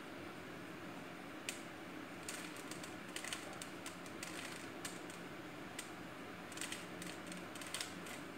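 Plastic 3x3 Rubik's cube twisted by hand: faint, irregular clicking of the pieces as the layers turn, in quick clusters with short pauses between.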